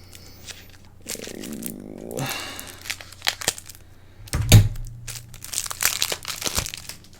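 A Yu-Gi-Oh structure deck's packaging being torn open and handled, with crinkling and tearing in uneven bursts and a thud about four and a half seconds in.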